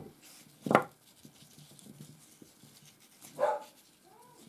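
A dog off to the side gives two short barks, one about a second in and one near the end, followed by a brief rising whine.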